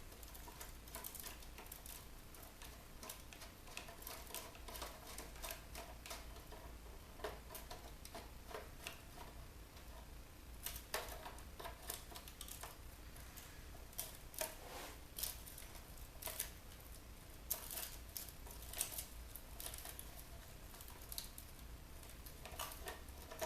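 Irregular clicks and scrapes of a Phillips screwdriver working at deep-set screws in a bug zapper's housing, over a steady low hum.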